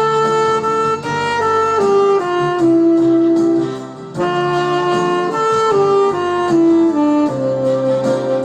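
Saxophone playing a slow song melody in long held notes, with a short break for breath about four seconds in.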